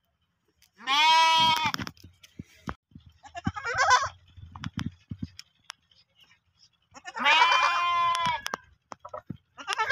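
Young goat kid bleating: a long bleat about a second in, a shorter, higher call around four seconds, another long bleat near seven seconds and a fourth starting at the end, with scattered light clicks between.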